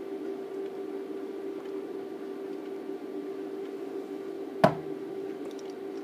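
A drinking glass set down on a hard surface with one sharp knock about three-quarters of the way in, over a steady hum.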